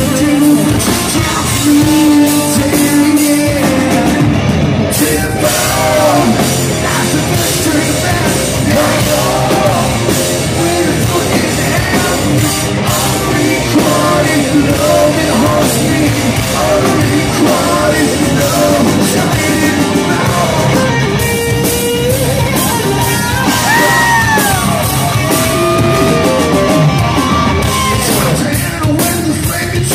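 Live heavy rock band playing loud in a large hall: electric guitar, bass guitar and drum kit, with a singer singing and yelling into a microphone.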